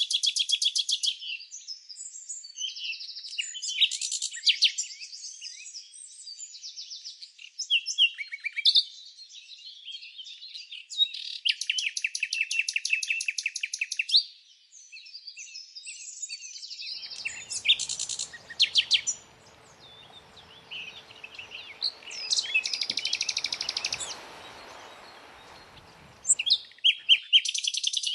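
Songbirds chirping and singing, with fast trills of rapid repeated notes coming every few seconds between shorter chirps. A faint hiss of background noise comes in past the middle and fades out near the end.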